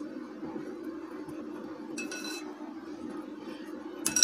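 A glass mixing bowl clinks twice and rings briefly, about two seconds in and louder near the end, over a steady low hum.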